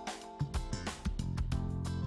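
Background music with a plucked guitar and a steady beat.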